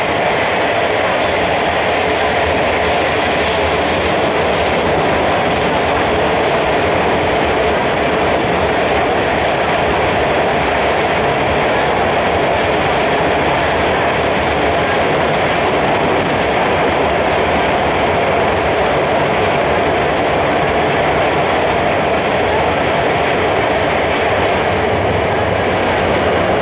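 Steady running noise heard inside the carriage of a CNR Changchun DKZ47 metro train travelling at an even speed through a tunnel: wheels rolling on rail, with a continuous mid-pitched roar that does not rise or fall.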